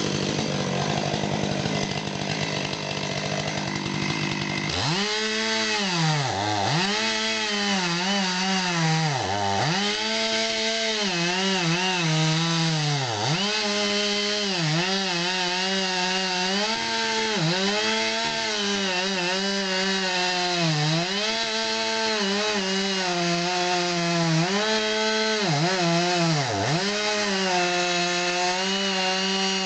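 Stihl MS500i, a fuel-injected two-stroke chainsaw, running at high revs while cutting wood. From about five seconds in its pitch sags and recovers again and again as the chain bites into the cut.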